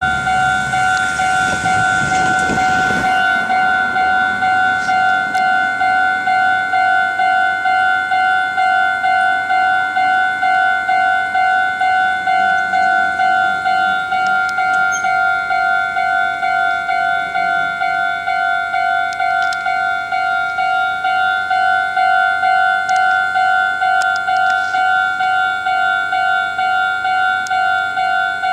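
Japanese level-crossing warning bell ringing, an electronic two-tone ding repeating steadily at about two strikes a second: the crossing is closed for an approaching train. A brief rush of noise sits under the bell in the first few seconds.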